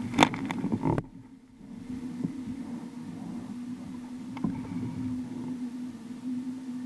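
Water splashing against a kayak in the first second, a few sharp splashes, followed by a low steady hum with an occasional faint knock.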